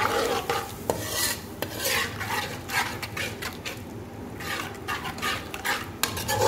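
A perforated metal spoon stirring and scraping around a metal pot of wet onion-and-spice masala, in irregular rasping strokes, with the masala sizzling underneath as it fries.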